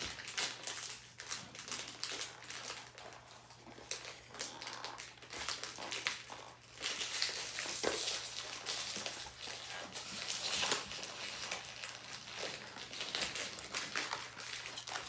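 Plastic foil blind-bag packaging crinkling and crackling in irregular bursts as it is handled and worked at to get it open, growing busier about halfway through.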